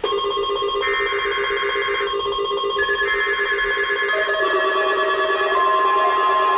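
Weather radio emergency alert test: buzzy digital SAME header bursts, each about a second long with short gaps, layered over a steady electronic warning tone that grows louder past the middle, with other tones stacked on it.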